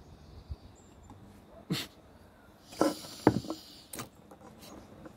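Short mouth sounds of beer being sipped and swallowed, then a sharp knock about four seconds in as the beer glass is set down on a wooden surface.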